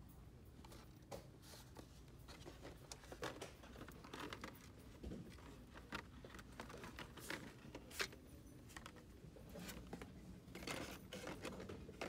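Faint crinkling and clicking of Hot Wheels blister-card packaging, plastic bubbles and card backs knocking and rustling as they are handled and flipped on store pegs, over a low steady hum.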